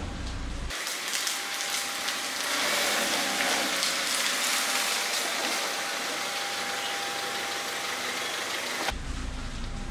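Kia sedan's engine idling at a standstill: a steady hiss with a thin, faint whine in its later part, and a deeper low rumble briefly at the start and again near the end.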